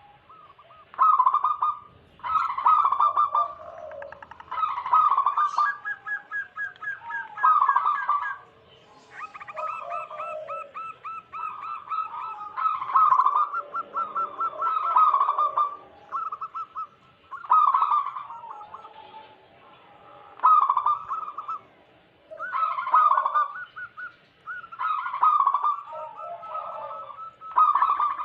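Zebra doves cooing: rapid staccato cooing phrases, each a second or two long, repeated every couple of seconds, several birds overlapping one another.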